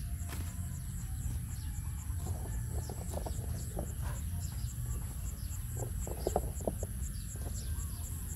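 Farmyard ambience: a steady high insect drone with rapid, evenly repeated chirps, and short chicken clucks coming and going from about three seconds in, over a steady low rumble.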